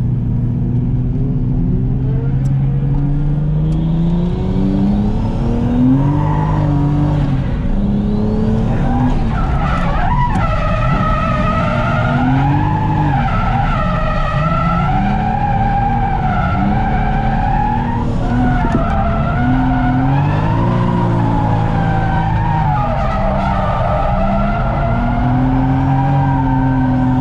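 Toyota JZX100 Mark II's turbocharged straight-six engine under load while drifting, its revs rising and falling, with the tyres squealing in long wavering tones that are strongest from about ten seconds in.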